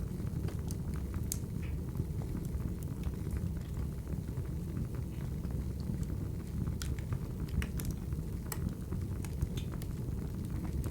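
Wood fire crackling: a steady low rumble of burning logs with scattered sharp pops and crackles.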